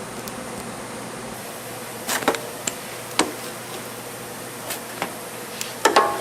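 Kitchen clatter: a handful of sharp knocks and clinks, ending in a quick cluster with a brief metallic ring, over a steady background hiss.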